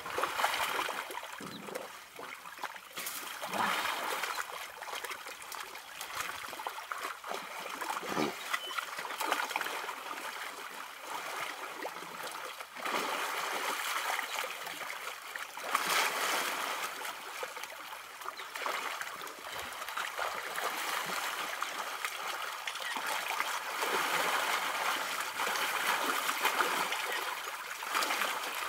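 African elephant calves wallowing in a muddy waterhole: thick mud and water sloshing and splashing, swelling and easing irregularly as they roll and push through it.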